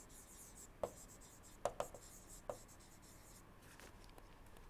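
Faint scratching of a stylus writing on a tablet screen, with four light taps in the first half.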